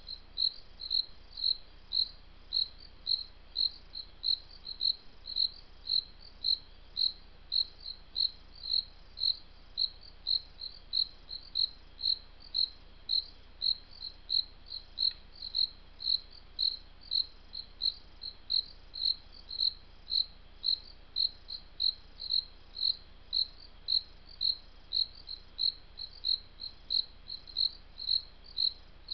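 A cricket chirping steadily: short, high, evenly spaced chirps, a little over two a second, without a break.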